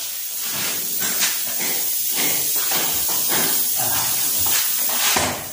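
Loud, uneven hissing noise broken by short crackles.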